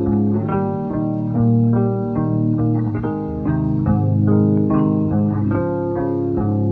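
Background music: an instrumental track with plucked guitar notes over a bass line at a steady pace.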